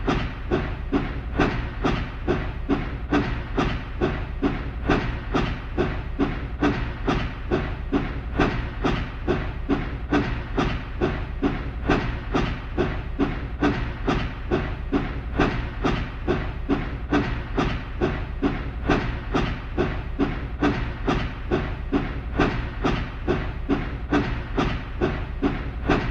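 Steam locomotive running at a steady pace: even, rhythmic chuffs about twice a second over a constant low rumble and hiss.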